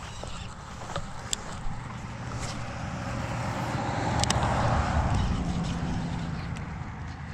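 A motor vehicle passes, its sound building to a peak about two-thirds of the way through and then fading. A few sharp clicks are heard, the loudest near the peak.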